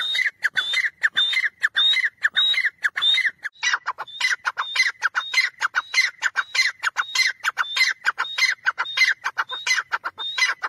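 Grey francolin (teetar) calling: a loud, shrill 'tee-tar' phrase repeated over and over at about two phrases a second, stopping abruptly at the end.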